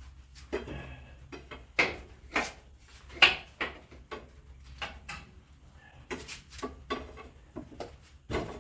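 Metal hand tools clinking and clattering, with a run of irregular sharp knocks and clicks, the loudest a few seconds in, as tools are handled and rummaged through.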